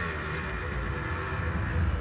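A vehicle engine's low rumble, growing slightly louder near the end.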